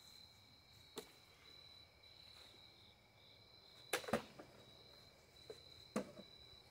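A sword swung at a tossed object about four seconds in, giving a sharp double crack, the loudest sound here. There is a light click about a second in and two smaller knocks near the end. Crickets chirp steadily and faintly throughout.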